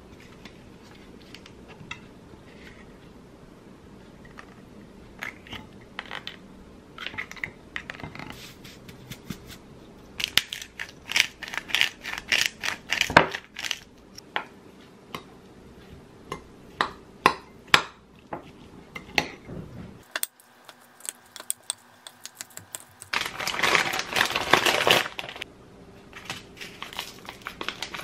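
Kitchen food-prep sounds: scattered taps and clinks around a glass mixing bowl of shredded imitation crab, a quick run of clicks as black pepper goes in, and a couple of seconds of rustling, crinkling plastic a few seconds before the end as a sauce packet is handled.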